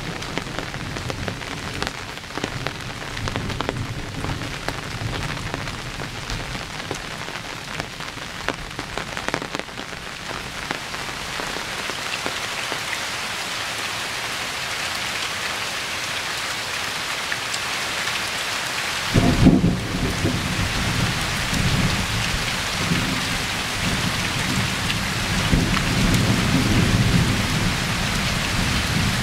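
Steady rain hissing, with low rumbling thunder in the first few seconds. About two-thirds of the way through, a sudden loud crack of thunder rolls into long, deep rumbling that goes on for several seconds.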